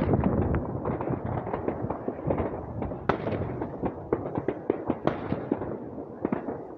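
Many fireworks going off across a town: a steady rumble of distant bangs with irregular sharp cracks and pops on top, the loudest about three and five seconds in.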